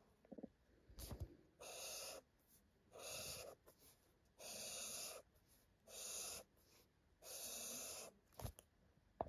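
Felt-tip highlighter dragged across paper in five separate strokes, each about half a second long and about a second apart, marking lines of handwriting. A couple of light knocks come about a second in and near the end.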